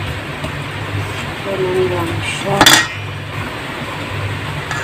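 Metal tongs scraping through a flour coating against a stainless steel bowl, with one sharp metal-on-metal clink a little past halfway. A steady low hum runs underneath.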